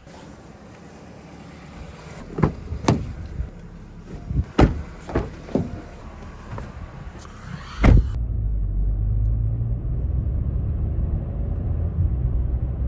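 A Changan car being boarded: a run of sharp clicks and knocks from the door and from climbing in, ending in a heavy thud about eight seconds in. Then the car drives off, with a steady low rumble of engine and road heard from inside the cabin.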